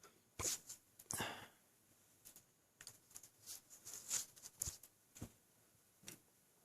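A person's mouth and throat sounds, picked up close: a scatter of soft clicks and short breathy bursts, the loudest about a second in.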